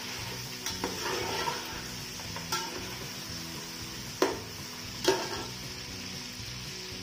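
Mutton pieces sizzling as they fry in oil in a metal pot, stirred with a plastic spatula that scrapes and knocks against the pot about five times, loudest about four and five seconds in.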